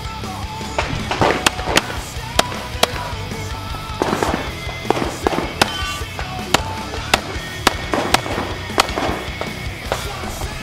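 Pistol shots fired in quick strings during a practical-shooting stage run, sharp cracks every half second or so, over background music.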